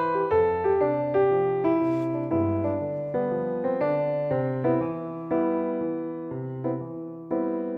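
Background music: a gentle piano piece with a melody over bass notes.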